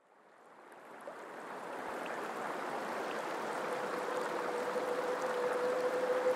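Flowing river water, a steady rushing that fades in from silence over the first couple of seconds, then holds.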